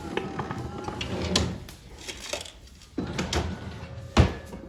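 A few clunks and knocks, one sharp knock the loudest about four seconds in, over low rustling, with a faint steady tone near the end.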